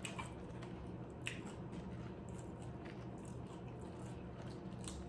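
Close-miked chewing of shrimp nachos, with a few short, wet mouth clicks and smacks scattered through.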